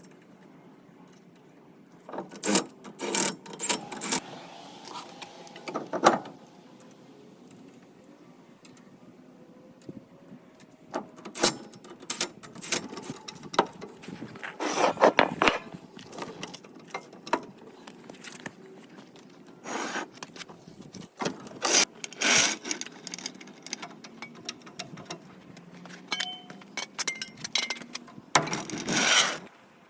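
Tools and wheel parts being handled during a mini-truck tire change: irregular clusters of metal clanks, rattles and scraping, separated by quieter spells.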